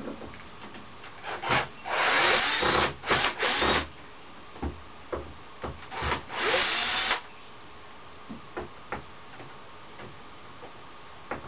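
Scrubbing a surface during a wash-down, in two rough bursts of a second or two each, with scattered knocks and clicks between them.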